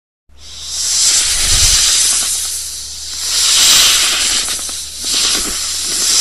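Snake hissing: long, breathy hisses that swell and ebb in several waves, starting after a brief silence.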